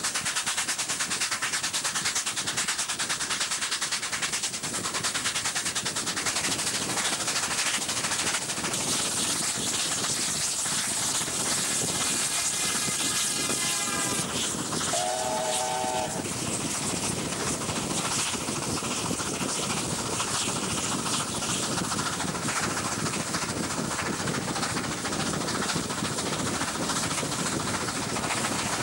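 Passenger train running at speed, heard from an open carriage window: a steady rush of wheels on rail and wind. About halfway through, two brief signal blasts from a train sound in quick succession, the second lower and stronger, as a freight train passes on the next track.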